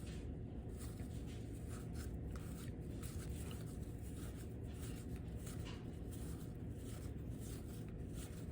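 1988 Score baseball cards being flipped through by hand, a soft, irregular run of card stock sliding and flicking against card, over a steady low hum.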